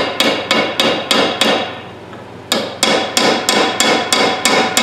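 Hammer blows on a rust-seized steel ratchet head clamped in a vise, about three ringing metallic strikes a second, with a pause of about a second midway before the blows resume. The hammering is meant to break the rust loose, and the head is not budging.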